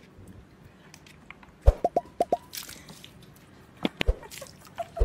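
Water dripping and plopping as a puppy moves about in a bucket of water: a quick run of plops about two seconds in, and a few more near the end.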